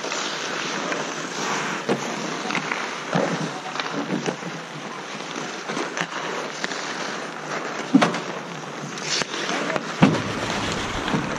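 Ice hockey in play: skate blades scraping and hissing on the ice, with scattered sharp clacks of sticks and puck, the loudest about 8 and 10 seconds in.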